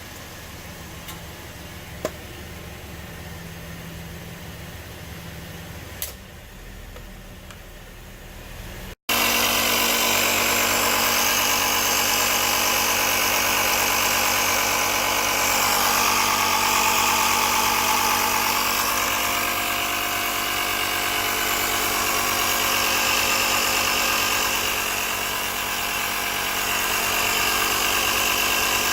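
12-volt portable tire inflator's small piston compressor running steadily and loudly, starting abruptly about nine seconds in. Before it there is a quieter steady hum with two short clicks.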